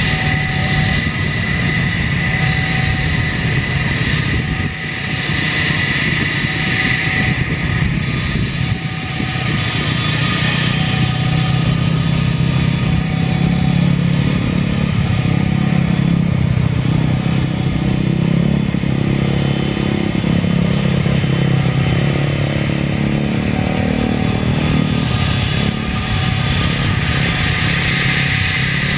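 Avro RJ85's four Honeywell LF507 turbofans running at low taxi power: a steady high whine over a low rumble as the jet rolls along the runway, growing a little louder about a third of the way in.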